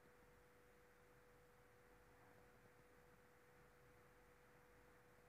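Near silence: faint room tone with a thin, steady hum.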